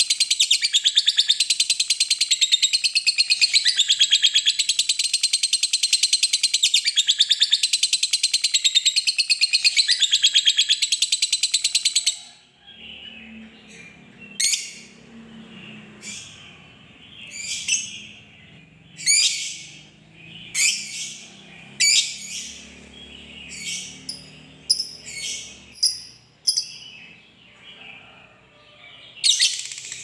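A lovebird giving its long, rapid, chattering trill (ngekek panjang), which runs for about twelve seconds and stops abruptly. After that come short, sharp single chirps every second or two.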